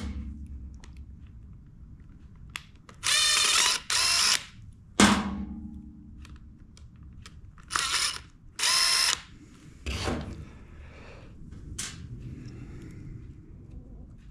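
Cordless drill/driver whining in several short runs as it backs out the small screws of a chainsaw carburetor, opening it to get at the diaphragm. A sharp clack comes about five seconds in, and small metal parts clatter between the runs.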